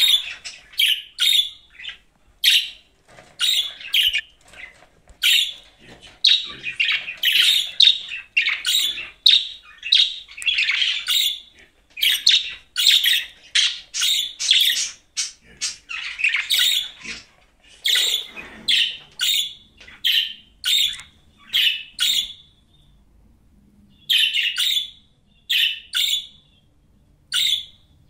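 A group of pet budgerigars chirping: rapid, high, short calls one after another, with a brief pause about three-quarters of the way through.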